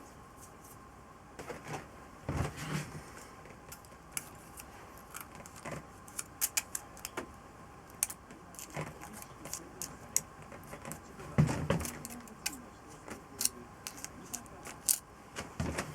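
Small metal parts and hand tools clicking and clinking as they are handled during engine work, in irregular light taps, with a couple of heavier knocks.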